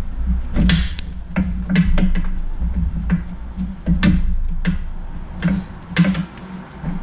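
Irregular metal clanks and scrapes as a front lower control arm is levered into place with a pry bar, over a steady low hum.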